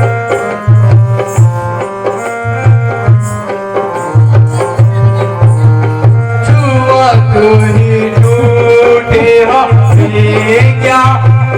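Indian music with a steady hand-drum beat of tabla or dholak type under held, chord-like tones. About halfway in, a wavering melody line comes in over them.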